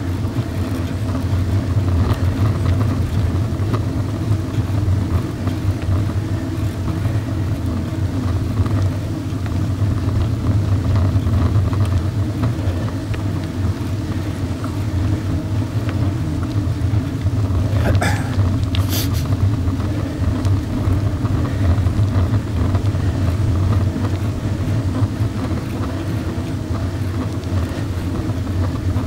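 Motor vehicle driving steadily along a gravel forest road: a continuous low engine drone with tyre and road noise, and two brief sharp clicks about two-thirds of the way through.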